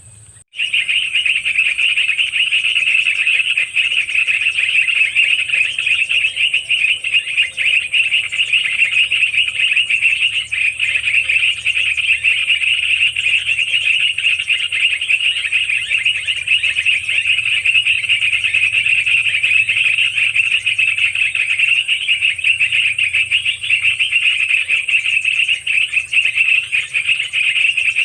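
Yellow-vented bulbul (trucukan) lure call played loud and unbroken through a speaker, a dense, even bird chatter that starts suddenly about half a second in, over a thin steady high whine.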